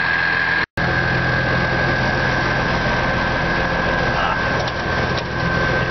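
Military cargo truck engine idling, heard from inside the cab, a steady low running sound with a steady high whine over it.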